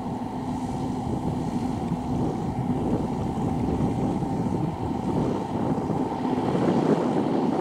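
Kubota V2403 turbo four-cylinder diesel on a homemade riding paddy tiller, running steadily under load as it pulls its cage wheels and tiller through flooded rice-field mud.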